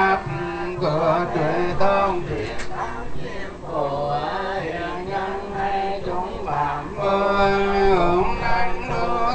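Vietnamese Buddhist monks chanting a sutra in a sung, melodic style, the male voices sliding between held notes, over a repeating low pulse.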